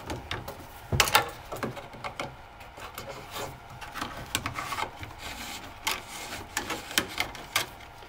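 12/2 Romex cable being pushed into a plastic two-gang electrical box: the sheathed cable and wires rubbing and scraping against the plastic, with scattered clicks and a sharper knock about a second in.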